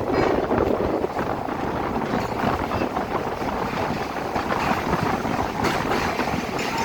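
Passenger train running along the track: a steady rumble and rattle of wheels on rail, with wind buffeting the microphone.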